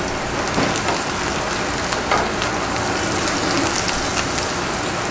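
Pepper-crusted flat iron steak searing in hot oil in a sauté pan: a steady sizzle with scattered small crackles.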